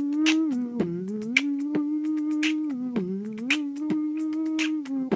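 A humming-voiced tune with a clicking, beatbox-like beat: held notes that dip and slide back up in a short phrase repeated about every two seconds, with sharp clicks a few times a second.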